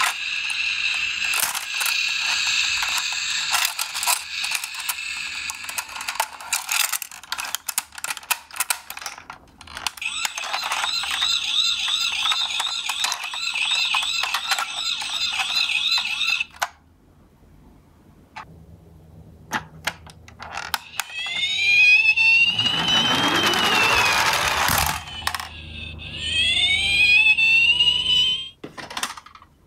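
Battery-powered toy ambulance's built-in electronic siren sounding through its small speaker, a warbling wail, over clicks and rattles of the plastic toy being handled. After a short pause the siren starts again with rising and falling wails, joined midway by a loud rushing rumble of the toy's plastic wheels rolling along the floor.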